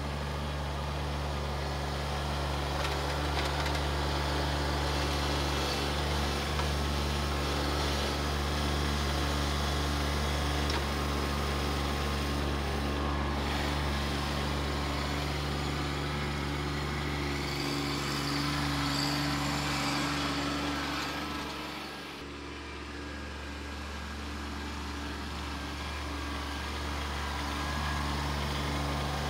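Kubota B2601 compact tractor's three-cylinder diesel engine running steadily while its grapple bucket lifts and carries a heavy log. The engine grows fainter about two-thirds of the way through, then louder again near the end.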